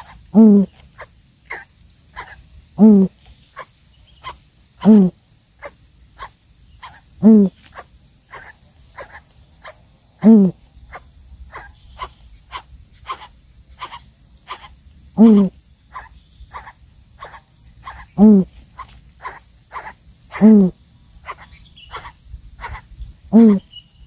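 Coucals at the nest giving short, deep calls, one every two to three seconds, with fainter quick ticking calls between them. Behind them runs a steady high-pitched cricket trill.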